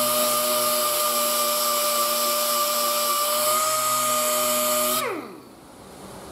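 Air-powered orbital sander running steadily on a bare steel car hood, a steady whine with air hiss, stripping old paint and body filler. About five seconds in it is let off and winds down, falling in pitch.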